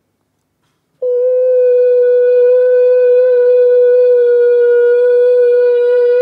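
A woman's singing voice holding one loud, sustained note of about 500 Hz through a microphone, starting about a second in. The note is pitched at a wine glass's resonant frequency to make the glass resonate and shatter.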